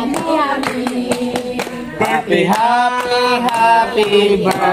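People singing with steady hand clapping, with a long held note about two and a half seconds in.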